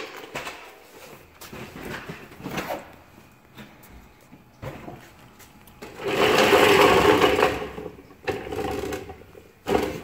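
A rapid mechanical buzz, like a small motor running, lasts about two seconds from about six seconds in, then comes back fainter for just over a second. Light knocks and handling noise come before it.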